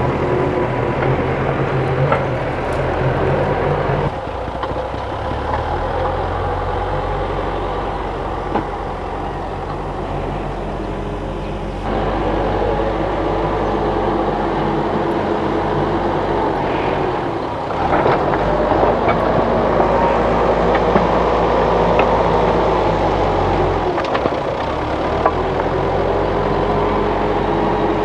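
Hidromek HMK 102B backhoe loader's diesel engine running under load while it drives and pushes soil with its front bucket. The engine note and loudness shift up and down several times.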